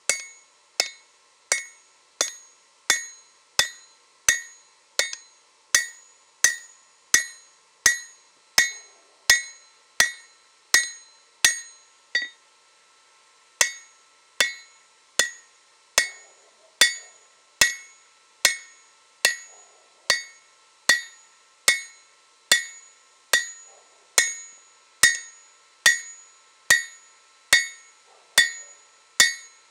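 Hand hammer striking red-hot leaf-spring steel on an anvil, forging a shamshir blade: steady blows about three every two seconds, each with a bright ringing clink from the anvil. The hammering stops for about a second and a half a little before halfway, then carries on at the same pace.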